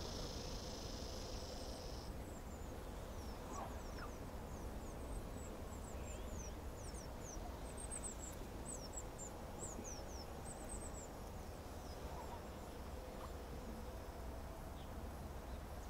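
Small birds twittering in quick, high, falling chirps, in scattered runs from a few seconds in. An insect's steady high buzz stops about two seconds in, over a low rumble.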